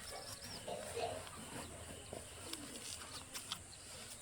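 Faint bird calls, a few short low coos, with scattered light clicks and knocks.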